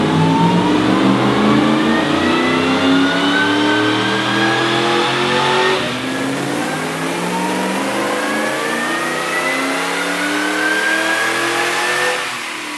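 Supercharged V8 in a Nissan Patrol at full throttle on a chassis dyno, revving up in a long rising sweep. Its pitch drops sharply about six seconds in, climbs again, and falls away near the end. On this pull the supercharger belt was slipping at about 5,500 rpm.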